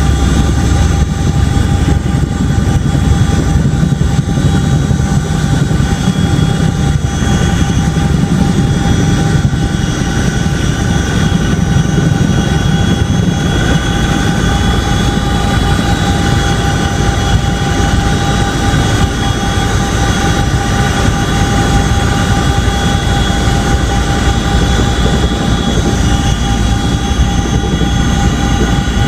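Boeing CH-47D Chinook's twin turboshaft engines and tandem rotors running steadily and loud: an even, high turbine whine of several tones over low rotor noise.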